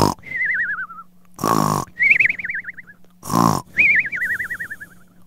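Cartoon snore-and-whistle sound effect: a short rasping snore followed by a quickly wavering whistle that slides down in pitch, repeating three times, about every two seconds. A faint steady hum lies underneath.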